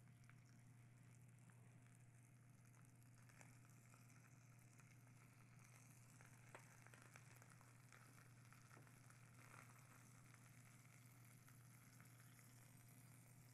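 Faint sizzling of a salmon fillet pan-roasting slowly in a cast-iron grill pan, with a few light clicks of a spatula against the pan about halfway through, over a steady low hum.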